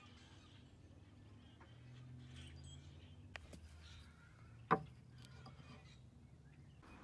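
A single sharp knock a little after the middle, with a faint click shortly before it, over a faint low hum.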